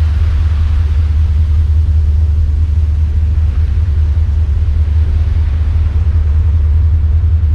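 Sea wind buffeting the microphone on a moving ferry's open deck: a loud, steady low rumble with a hiss above it.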